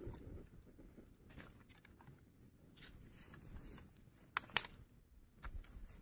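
Small campfire of dry twigs burning, with a few scattered sharp crackles and pops, two close together about four and a half seconds in.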